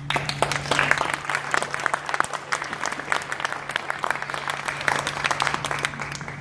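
Audience applauding. The clapping starts suddenly and dies away after about six seconds, over a steady low hum.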